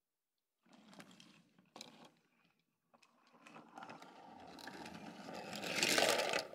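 BRIO toy train pushed by hand along wooden track, its wheels rolling on the wooden rails with a few sharp clicks. It comes in two runs: a short one, then a longer one that grows louder and stops suddenly near the end.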